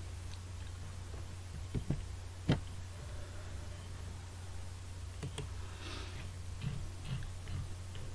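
A few sharp computer mouse clicks over a steady low hum; the loudest click comes about two and a half seconds in.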